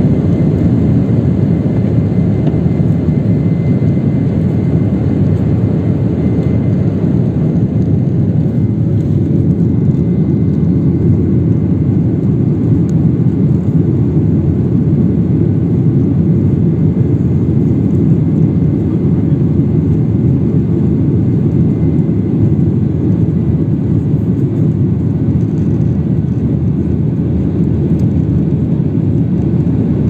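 Jet airliner's engines at takeoff power heard from inside the cabin, a loud steady low rumble through the takeoff roll and climb-out. The higher hiss and rattle of the runway roll fade about eight seconds in, around liftoff.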